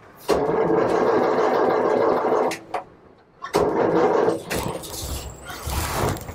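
Starter motor cranking the Bedford RLHZ Green Goddess's petrol six-cylinder engine: a burst of about two seconds, a pause, then a shorter burst and some uneven cranking near the end. The engine is not catching; it is reluctant to start without choke.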